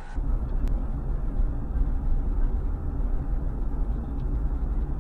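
Low, steady rumble of a motor vehicle, with a faint click about a second in.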